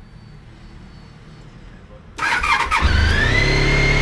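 Honda ST1300's V4 engine with its stock exhaust being started: the starter cranks about two seconds in, the engine catches within a second and settles into a steady, high fast idle because it is still cold.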